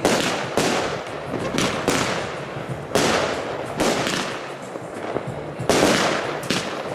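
Consumer firework batteries (cakes), fired in pairs, shooting: sharp bangs about once a second, each followed by a fading hiss.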